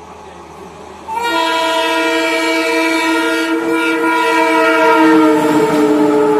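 Air horn of an Indian Railways OHE inspection car, blown in one long steady blast that starts about a second in. It sounds several tones together, and its pitch dips slightly near the end.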